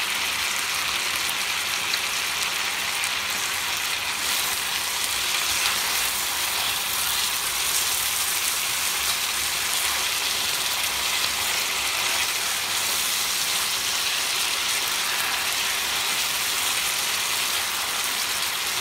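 Potatoes, carrots and parsley sizzling steadily in oil in a frying pan, while a wooden spatula stirs them.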